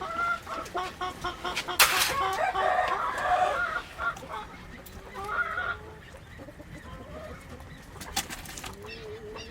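Chickens clucking, a run of short repeated calls that is busiest in the first few seconds and thins out, with a few sharp knocks and scratches among them.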